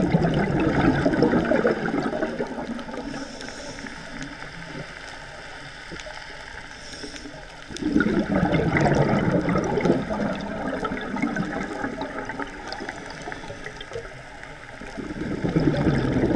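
Scuba regulator exhaling underwater: bursts of bubbling and gurgling about two seconds long, at the start, about eight seconds in and near the end, with quieter water noise between them.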